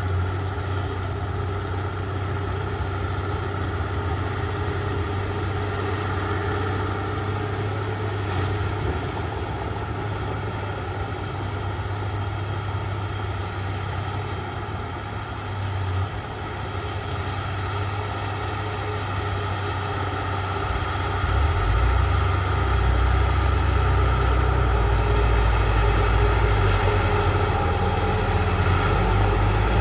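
Heavy earthmoving machinery's diesel engine running steadily. About two-thirds of the way through, it grows louder and deeper.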